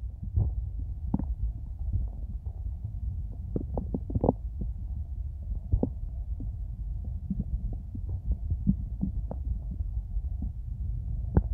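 Close-miked hungry human stomach: a steady low rumble with many small gurgles and pops scattered through it.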